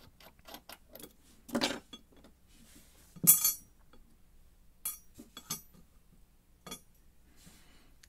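Small metal clicks and clinks of a brass lock cylinder being worked apart by hand over a brass pinning tray. About three seconds in comes a loud, ringing clink as a small brass part is set down in the tray, with lighter taps before and after it.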